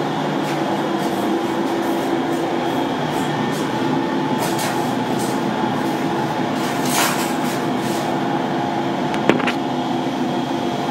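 Biomass gasification plant's electric motors and blowers running, a steady drone with several held humming tones. A brief hiss about seven seconds in and a single sharp click about nine seconds in.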